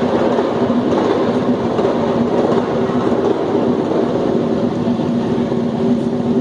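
Loud, dense Afro-Brazilian batuque percussion music: fast, steady drumming and rattling with a held low tone underneath.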